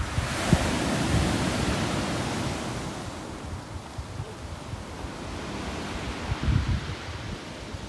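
Storm waves on a beach: a wave breaks at the start and its wash hisses and fades over about three seconds. Wind buffets the microphone throughout, strongest about six seconds in.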